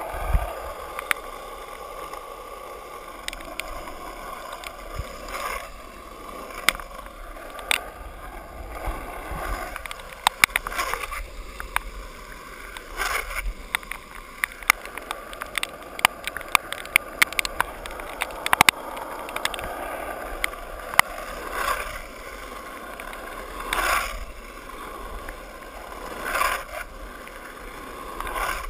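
Skateboard wheels rolling over wet pavement: a steady watery hiss, with many scattered sharp clicks and a few louder swooshes.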